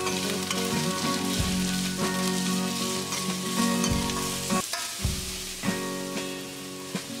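Sliced onions sizzling in hot oil in a stainless steel kadai, stirred with a slotted spatula that scrapes and knocks against the pan several times.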